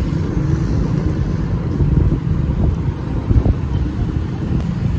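A motorcycle ride heard from the saddle: a steady low rumble of wind buffeting the microphone, mixed with the bike's engine running at an even cruising speed.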